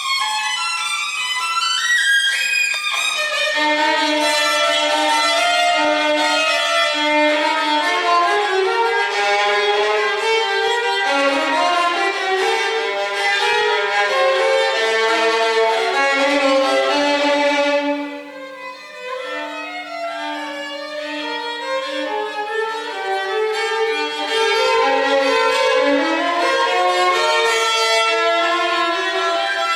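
Violin music with quick runs of notes, briefly softer about eighteen seconds in.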